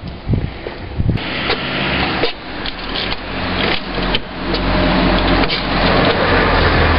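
Outdoor street noise with scattered sharp clicks and knocks as a car door is handled and opened. A low rumble builds up from just past the middle and grows steadily louder.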